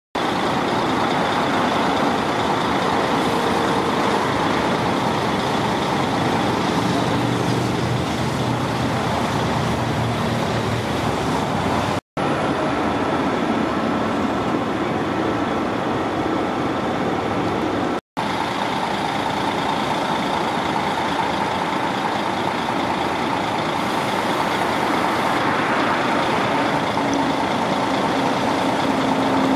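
Steady running noise of a vehicle, an even rushing sound with faint steady tones, broken by two brief drops to silence about twelve and about eighteen seconds in.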